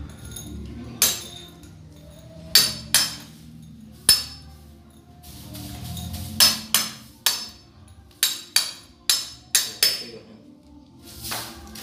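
Hammer blows chipping at the joint between a plastered wall and the floor tiles: sharp single strikes spaced a second or more apart, then a quicker run of about six blows near the end, with scraping after them.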